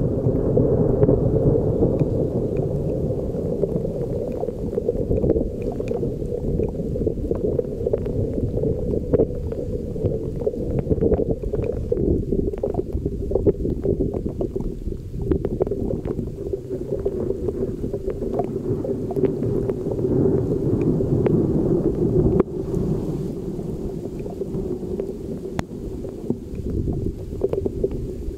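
Thunderstorm: a continuous low rush of wind buffeting the microphone together with heavy rain, with many scattered drop ticks throughout.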